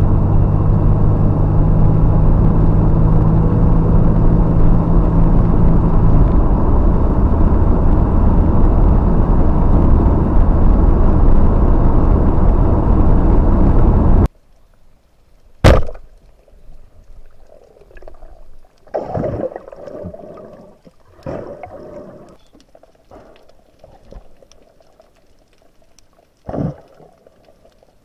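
Mercedes-Benz car driving on a road: loud, steady road and wind noise under a low engine hum that drops away about six seconds in. It stops abruptly about 14 seconds in and gives way to quiet underwater sounds, a sharp knock and then several gurgling bubble bursts.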